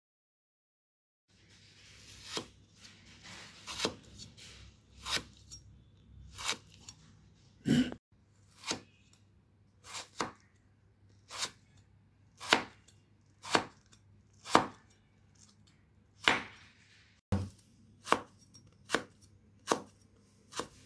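Broad cleaver-style knife slicing tomatoes on a wooden chopping board: sharp knocks of the blade on the board, roughly one a second, starting after a silent first second or so.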